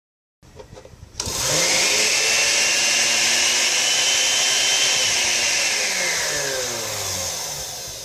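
An Oster blender's motor, with no jar fitted, runs unloaded after a few faint clicks. It switches on about a second in, spins up and runs with a steady high whine. About two-thirds of the way through it slows and winds down, fading near the end. This is the test run of the blender after its keypad has been repaired.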